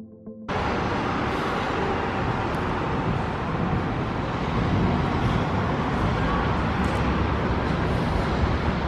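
Steady rushing noise of a thunderstorm over a city, cutting in suddenly about half a second in.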